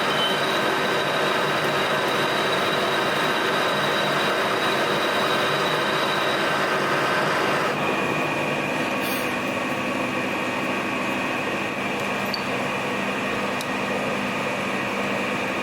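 Colchester metal lathe running, turning a shaft. About eight seconds in, the sound changes and eases slightly, and the steady tones shift.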